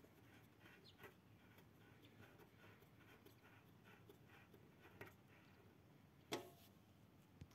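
Near silence with a few faint metallic clicks as a mower blade, its bolt and washer are handled on the deck spindle, with one sharper click about six seconds in.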